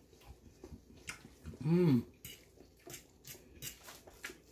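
A metal fork clicking and scraping against a pan of sauced spaghetti as it is stirred, in many light taps. Midway a short hummed voice sound rises and falls in pitch, the loudest sound.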